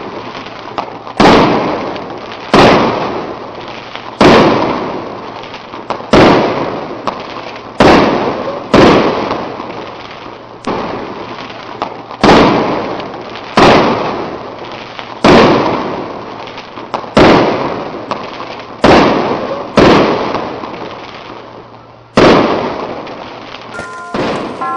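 Aerial firework shells bursting overhead: a string of about fourteen loud bangs, one every second or two, each trailing off in a long, fading echo.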